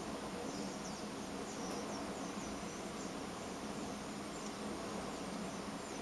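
Steady outdoor background hiss with several faint, short, high bird chirps scattered through it, each dropping quickly in pitch.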